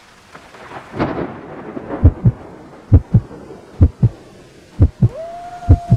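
Heartbeat sound effect: paired low thumps, lub-dub, repeating a little under once a second, after a rumbling swell about a second in. A steady tone comes in near the end and slowly sinks.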